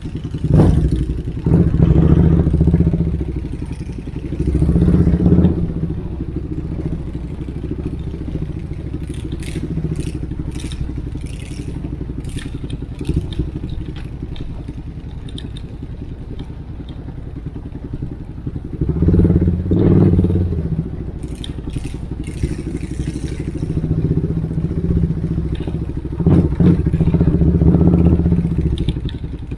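Motorcycle with a loud exhaust running steadily, its revs rising in four louder swells: shortly after the start, about five seconds in, around twenty seconds and near the end. Scattered short clicks sound in the quieter stretches.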